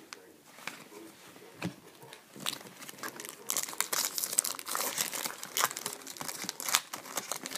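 Wrapper of a hockey-card pack being torn open and crinkled, with scattered crackles at first that thicken into dense crinkling from about two and a half seconds in.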